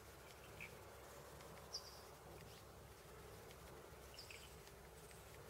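Near silence: faint rural outdoor ambience, with a couple of short, high chirps, about two seconds in and again about four seconds in.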